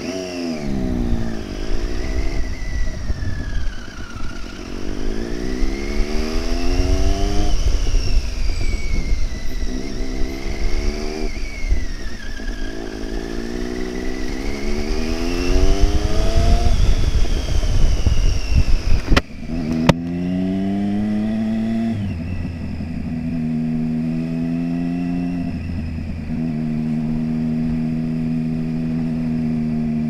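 Triumph Street Triple 675R's 675 cc inline three-cylinder engine accelerating through several gears, revs climbing in about four rising pulls with a drop at each upshift. After a sharp click about two-thirds of the way in, it holds steady cruising revs with small changes in throttle.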